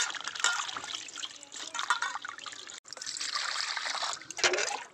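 Hands swishing and splashing leafy greens in a steel bowl of water. After a brief break about three seconds in, a stream of water pours steadily into the bowl.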